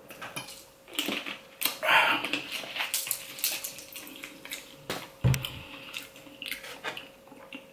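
Drinking from a plastic bottle and handling it: mouth sounds, clicks and crackles of the plastic, then a dull thump on the table about five seconds in.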